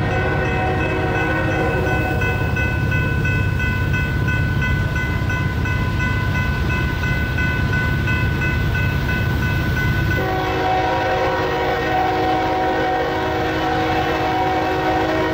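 Diesel locomotive air horn sounding one long continuous blast over the low rumble of a passing train. About ten seconds in, the horn chord drops to a lower set of notes.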